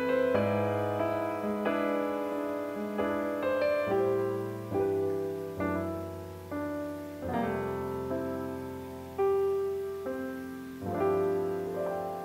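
Background piano music: notes and chords struck one after another, each fading away before the next.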